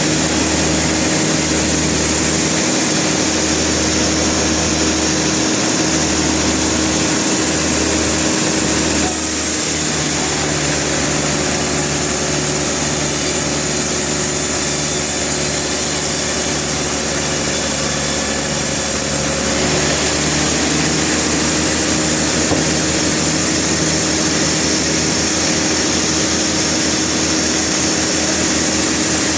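Sawmill machinery running steadily, an engine hum under the noise of sawing, with the sound changing in character about a third of the way in and again about two-thirds in.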